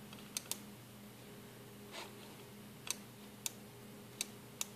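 A few single clicks on a computer keyboard, spaced about half a second to a second apart, over a faint steady hum.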